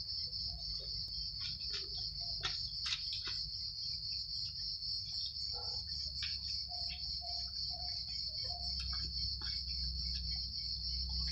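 Outdoor insect chorus, a steady high-pitched buzz, over a low background rumble, with scattered short clicks from cats crunching dry kibble.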